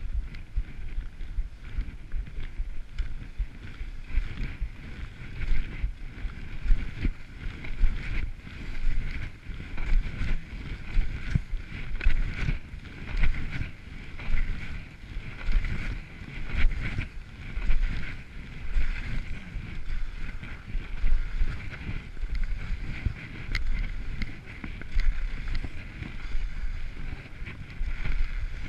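Skis hissing through snow while wind rushes and buffets over a head-mounted camera's microphone, the rush swelling and fading about once a second.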